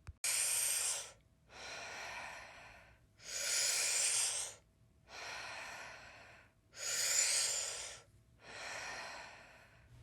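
Deep, rhythmic breathing in Wim Hof-style breathwork, with no pause held between inhale and exhale. There are three full breath cycles, each a louder breath followed by a softer one.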